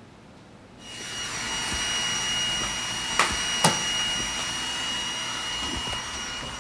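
Robot vacuum cleaner switching on and running with a steady whir and a thin high whine. It knocks sharply twice, and then it cuts off suddenly.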